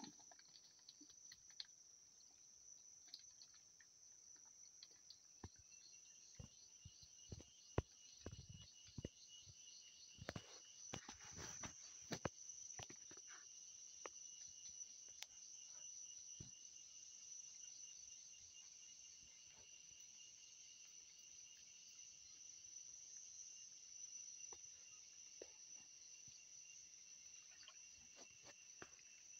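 Insects chirring steadily in a high, even trill, with a second, lower pulsing trill joining about five seconds in. Scattered faint knocks and taps, the loudest about eight seconds in.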